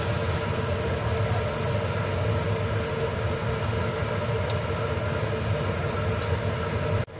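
A steady appliance hum with hot oil sizzling in a frying pan, as fried onions are lifted out with a wire strainer; the sound cuts out briefly near the end.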